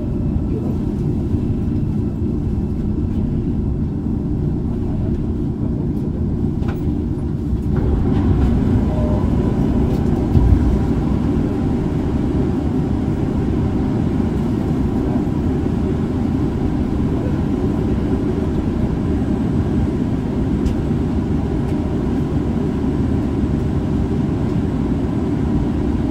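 Steady low rumble of a Shinbundang Line subway train, heard from inside, as it pulls into a station and stands at the platform; the sound grows fuller and brighter about eight seconds in.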